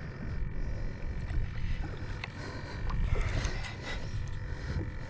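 Wind rumbling on the microphone over open water, with scattered light clicks and ticks as hands handle the fishing line at a baitcasting reel.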